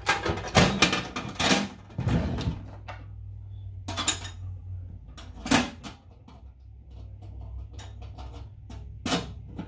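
Steel .50 cal ammo can stove and its lid clanking and knocking as it is handled and set down on a workbench: a run of clatter in the first couple of seconds, then single knocks about four, five and a half and nine seconds in. A low steady hum runs underneath.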